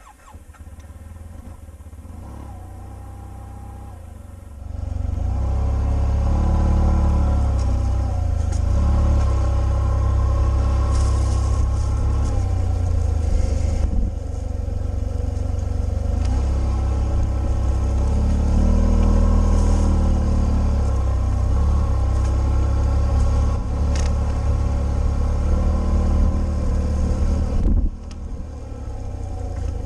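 Yamaha TMAX560 scooter's parallel-twin engine running, quieter at first, then louder from about four and a half seconds in as the scooter gets under way, with a brief drop near the end.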